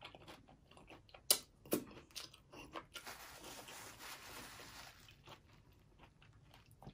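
Close-up chewing of crunchy food, taco salad with chips and Flamin' Hot Cheetos, with two sharp crunches about a second and a half in. A paper napkin rustles for a couple of seconds in the middle.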